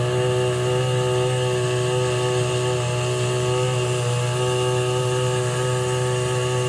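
Bourke 30 engine running at a steady speed, a constant low, even buzz.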